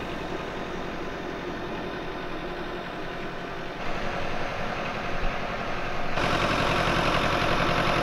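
An engine idling steadily, growing louder in two steps, about four and six seconds in.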